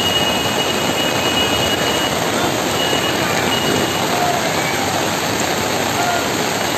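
Heavy rain pouring onto a flooded street: a loud, steady rushing hiss.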